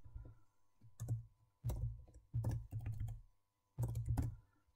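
Typing on a computer keyboard: a few short bursts of keystrokes with brief pauses between them.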